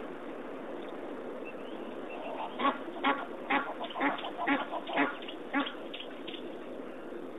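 A quick run of about eight short, sharp animal calls, a little under half a second apart, starting about two and a half seconds in.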